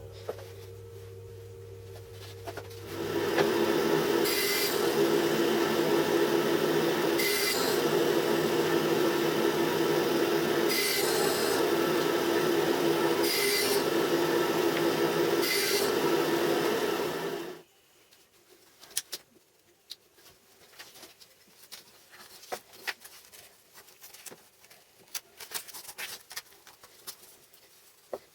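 Homemade band saw running with a steady hum, then its blade cutting through a workpiece for about fifteen seconds, the noise swelling briefly every few seconds. The cut ends abruptly, leaving only faint scattered clicks.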